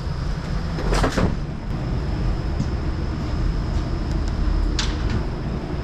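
A steady low rumble, with a sharp double clunk about a second in and a single click near the end as a wall-mounted push-button switch is pressed.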